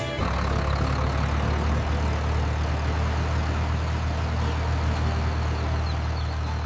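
Tractor engine running steadily, a low, even drone with no change in speed.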